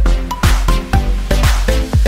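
Background music with a steady kick-drum beat, about two beats a second, under sustained synth tones.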